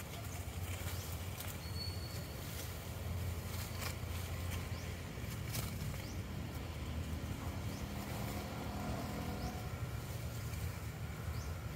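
Outdoor forest ambience: a steady low rumble, with a few scattered sharp clicks and snaps and one brief high chirp a little under two seconds in.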